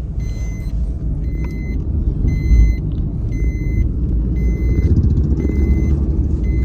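Car driving, heard from inside the cabin: a steady low rumble of engine and tyres on the road. Over it a high electronic warning beep repeats about once a second.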